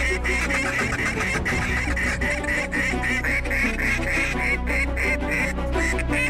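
Mouth-blown duck calls quacking in fast, steadily repeated series, blown to lure a passing flock of ducks down to the decoys.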